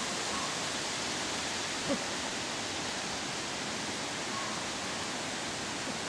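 Steady, even hiss of outdoor background noise, with one short faint sound about two seconds in.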